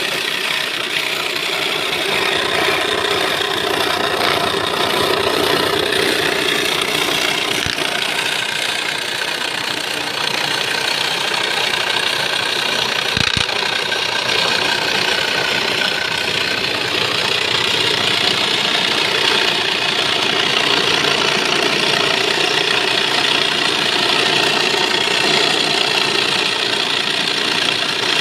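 Electric reciprocating-blade saw cutting a curve through a wooden board, running steadily with a rapid rattling chatter.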